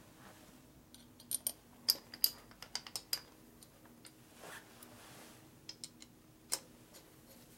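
Light metal clicks and taps of intake manifold gaskets and bolts being handled and fitted on a Harley-Davidson V-twin. A quick cluster runs from about a second in to three seconds, with a few more sharp clicks around six seconds.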